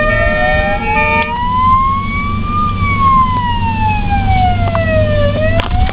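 Ambulance siren wailing in a slow rise and fall: one long climb, one long fall, then starting to climb again, over a steady low road rumble. It cuts off abruptly at the end.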